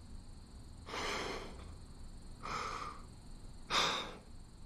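A person breathing out heavily three times, about a second and a half apart, with the last breath the loudest and most abrupt.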